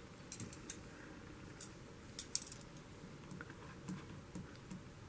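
Sharp clicks and light clatter of butterfly knife trainers being handled and set on a scale: a few quick clicks near the start, a louder cluster a bit after two seconds, then softer scattered clicks.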